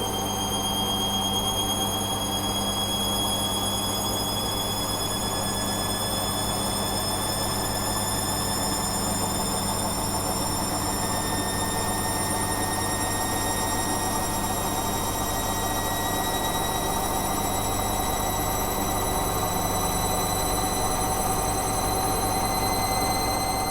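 A continuous shrill, warbling ringing tone that creeps slowly upward in pitch, over a steady low hum.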